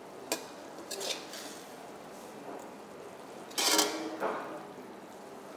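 Metal ladle stirring thick vada curry in a kadai, scraping and clinking against the pan a few times, the loudest clank with a brief ring about three and a half seconds in.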